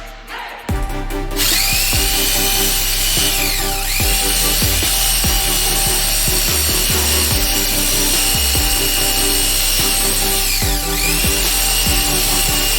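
A handheld electric power tool's motor whining at high speed, starting about a second in; its pitch drops and climbs back up twice. Background music with a beat plays underneath.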